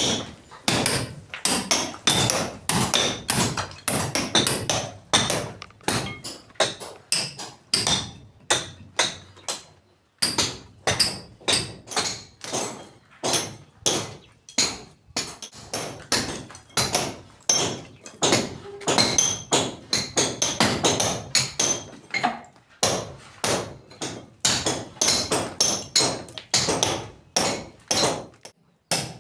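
A hammer striking repeatedly, about two to three sharp blows a second, with a couple of brief pauses.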